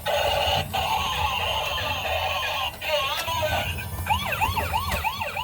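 Toy police car's electronic siren sound effect, playing through a small speaker. It starts as a buzzy, steady wail, then from about four seconds in switches to a fast yelp of quick rising sweeps, about three a second.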